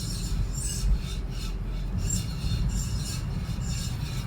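Abnormal metallic scraping from a 30-series Toyota Prius: a high, rasping rub that pulses about twice a second over a low rumble. It is loud, and its cause is unknown.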